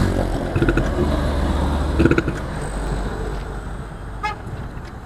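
Road-riding noise from a motorcycle: a steady low rumble that eases off gradually. A short vehicle horn toot sounds about four seconds in.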